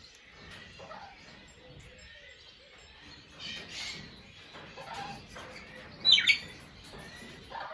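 Parrots calling and chirping now and then, with a loud, sharp call falling in pitch about six seconds in.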